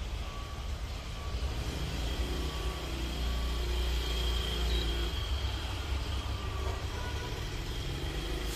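Cosmos 16-WFGR wall fan running, its airflow rumbling steadily on the microphone, with a faint high whine beneath.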